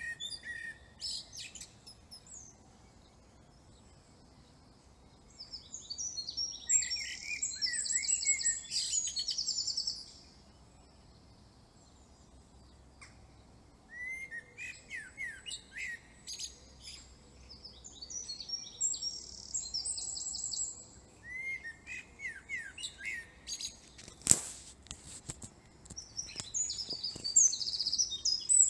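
Songbirds singing in bursts of fast chirped and trilled phrases, with short quiet pauses between them. A single sharp click near the end.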